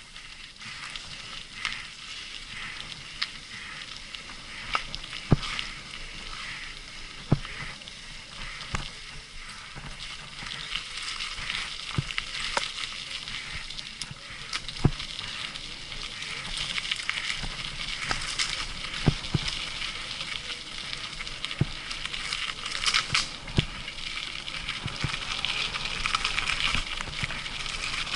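Mountain bike rolling along a dirt forest trail: a steady crackling hiss of tyres and wind, with irregular sharp knocks as the bike jolts over bumps. The hiss grows louder in the second half.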